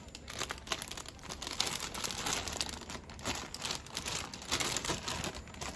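Clear plastic bag crinkling and rustling as hands unwrap a toy part from it, an irregular run of crackles.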